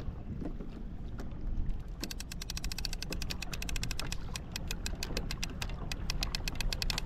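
Fishing reel clicking fast and evenly, starting about two seconds in, over low wind and water noise.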